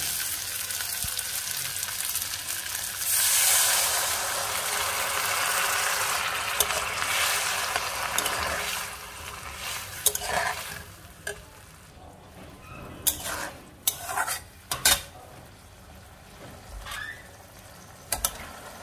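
Onion-and-chickpea masala sizzling hard in a hot kadai as water is added, strongest about three seconds in and dying down after about nine seconds as it becomes a gravy. After that a steel spatula scrapes and knocks against the kadai a few times while the gravy is stirred.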